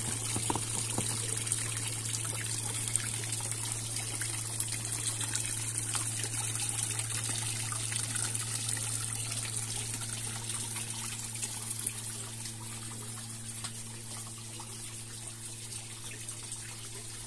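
Small decorative cascade fountain running, water trickling and falling steadily, with a steady low hum under it.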